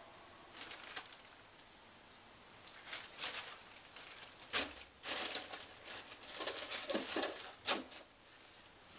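Plastic packaging of a drop sheet crinkling and rustling in short bursts as it is handled and pushed into a drawer, with a couple of sharp clicks.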